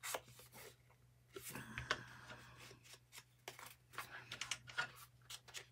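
Quiet rustling of painted card tags being handled, with scattered small taps and scrapes of paper against the cutting mat.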